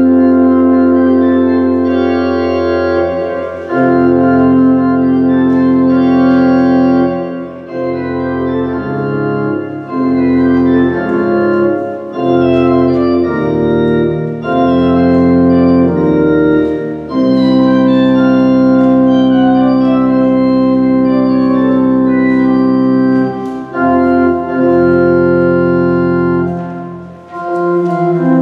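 Church organ playing slow, sustained chords in phrases, with short breaks between phrases. It starts abruptly.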